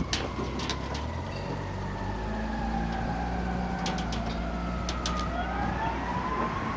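A siren wailing, its pitch falling slowly and rising again near the end, over the steady low hum of an idling engine, with a few sharp clicks scattered through.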